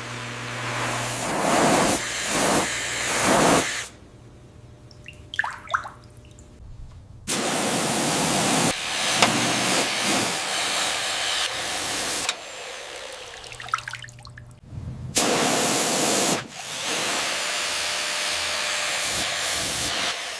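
Water sprayer hissing in several long steady bursts of a few seconds each, with quieter gaps between, as rust is washed off a metal padlock.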